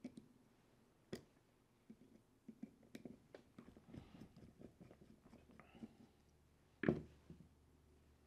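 Faint clicks, taps and light rustling of a small hex driver working bolts out of a plastic RC crawler axle, with a louder knock about seven seconds in.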